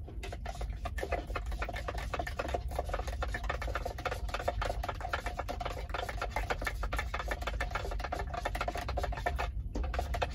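Metal spoon stirring briskly inside a tumbler, making a fast, steady run of clinks and scrapes against its sides as seasoning mix is stirred into water. The clinking stops shortly before the end.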